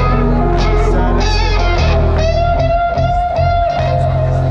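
Live electronic music played loud through a festival PA, with a sustained electric guitar lead over heavy, steady bass; the bass drops back briefly in the middle before returning.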